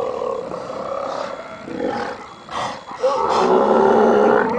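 South American sea lions calling from the colony: long, low, steady roars, one fading out after about a second and a half and a louder one starting about three seconds in, with a few short calls between.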